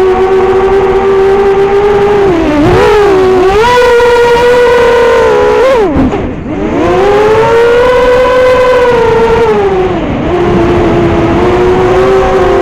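Brushless motors and 5-inch props of an FPV quadcopter whining, heard from a camera on the drone. The pitch rises and falls with the throttle, drops steeply to a low point about six seconds in, then climbs back.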